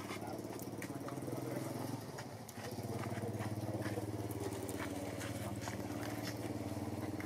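An engine running steadily, dipping briefly about two and a half seconds in and then running a little louder, with scattered light clicks over it.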